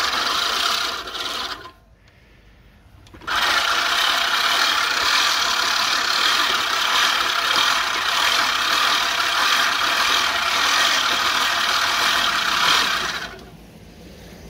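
Silent Scott's Deluxe manual reel mower, freshly sharpened by backlapping, pushed through thick grass: the spinning reel blades cut with a dense, fast-ticking whir. It runs briefly, stops for about a second and a half, then runs steadily for about ten seconds and stops shortly before the end.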